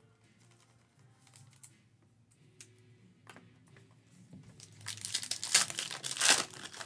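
Foil wrapper of a Panini basketball card pack crinkling loudly as it is torn open by hand, in the last two seconds.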